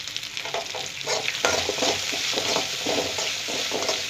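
Chopped onions, garlic and dried red chillies sizzling in hot coconut oil while a spatula stirs and sautés them, scraping and clicking against the pan over and over. The stirring gets busier about a second in.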